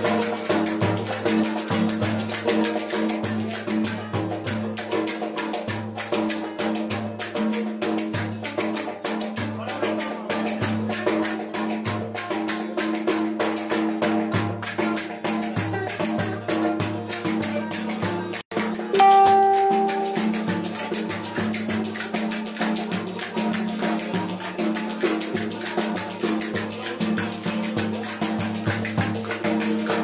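Cümbüş, a metal-bowled Turkish lute, strummed in a fast, bright dance rhythm over a steady low beat. About two-thirds of the way through, a short clear held tone stands out briefly.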